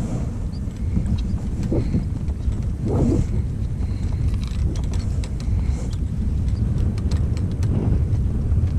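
Wind buffeting the microphone in a steady low rumble, with a few faint clicks and knocks on the kayak.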